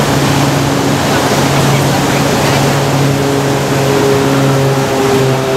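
Ocean surf washing in over rocks, with a steady engine drone underneath that starts at the beginning and shifts slightly in pitch near the end.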